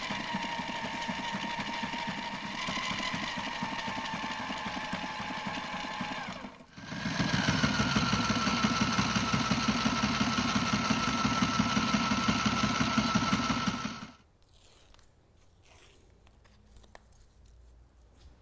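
Sewing machine stitching a double hem in heavy marine fabric: a steady run of rapid stitches, a brief pause about six and a half seconds in, then a second, louder and higher-pitched run that stops abruptly about fourteen seconds in.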